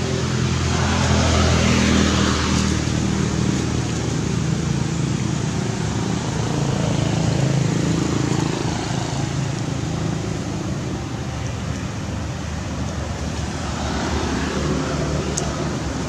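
Steady low engine hum with road-traffic noise, swelling about a second in and again near the end.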